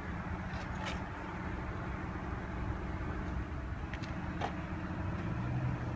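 Steady low background rumble with a faint low hum, and a few faint clicks.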